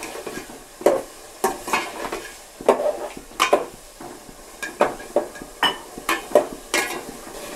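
Metal ladle stirring chicken in a thick masala gravy in a metal cooking pot, scraping and clinking irregularly against the pot, about two strokes a second.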